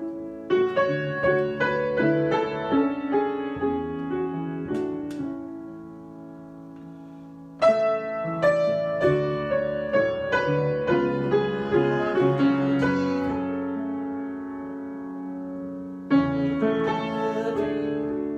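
Piano improvisation: phrases of chords and melody notes that are struck and left to ring. The playing thins out and fades to sustained chords twice, then begins again with a loud new chord, once about eight seconds in and again near the end.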